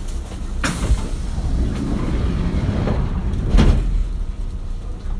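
Sliding passenger doors of a Kintetsu 1420 series train closing, with a thud about two-thirds of a second in and a second, louder thud about three and a half seconds in, over a steady low hum from the standing train.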